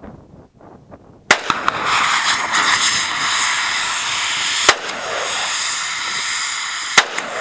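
A gunshot about a second in hits a CO2 canister, which at once starts a loud, steady hiss as the pressurised gas jets out through the hole. Two more shots crack out over the hiss, about two and a half seconds apart.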